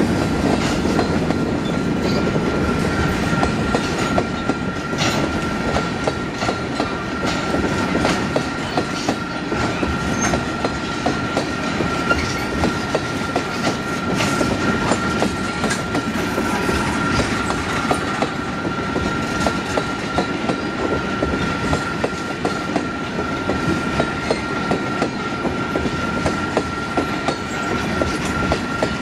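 Freight train of tank cars and covered hoppers rolling past, the wheels clicking over the rail joints at a regular beat. A steady high-pitched ring runs through the rumble.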